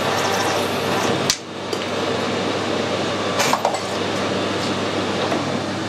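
Metal lathe running while its tool cuts through steel bar stock at the chuck. A little over a second in, a sharp click comes as the piece parts off and the cutting noise drops away. A metallic clink follows about two seconds later.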